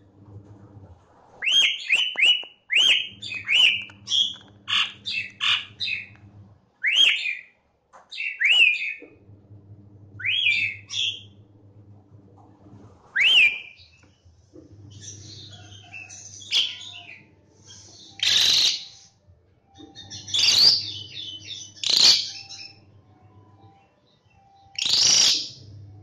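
Asian pied starling singing: a quick run of short whistled notes that sweep up and down, turning after about fourteen seconds into a few louder, harsh, noisy calls.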